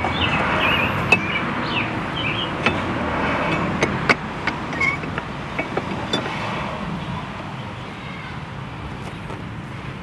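A road vehicle going by, its noise fading away, with birds chirping and a few light clicks from small parts or tools being handled.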